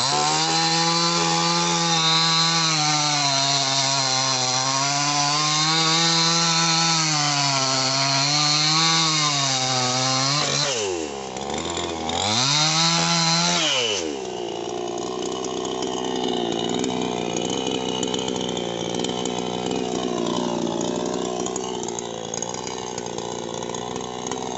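A New West two-stroke chainsaw cutting through a sonokeling (Indian rosewood) branch, its engine under load with a wavering pitch. About 11 seconds in, the revs drop and rise again briefly, and by about 14 seconds in they fall to a steady idle as the cut is finished.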